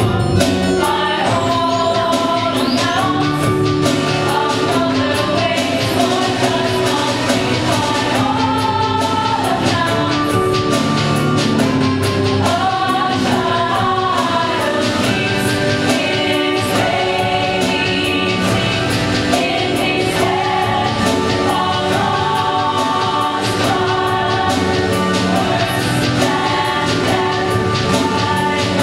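A chorus of voices singing together over instrumental accompaniment, a steady, continuous musical passage from a stage musical.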